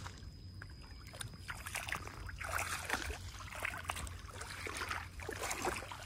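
Shallow water in a flooded rice paddy sloshing and trickling as hands and feet move and grope through it, with many small irregular splashes that get busier about two seconds in.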